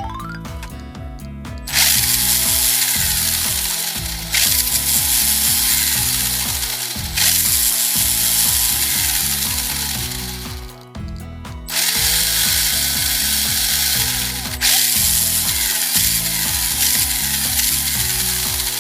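Electric motor and spur-gear drivetrain of a Tamiya TB04 radio-controlled car running under throttle with a loud gear whir. It comes in five bursts of a few seconds each, with a longer pause about halfway.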